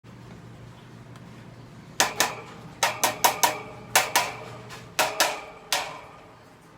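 About ten sharp metallic knocks and clinks, each with a short ring, coming irregularly from about two to six seconds in over a faint steady hum: metal stand-fan parts being handled and knocked into place during reassembly.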